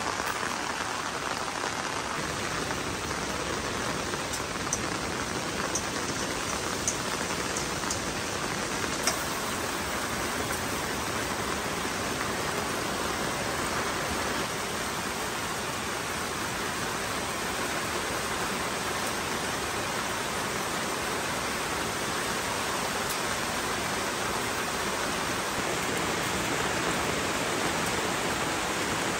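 Rain pouring steadily, with a few sharper drop impacts in the first nine seconds or so.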